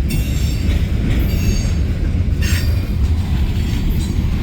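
Norfolk Southern freight cars rolling past at slowing speed. A steady low rumble runs under intermittent high-pitched squeals from the wheels.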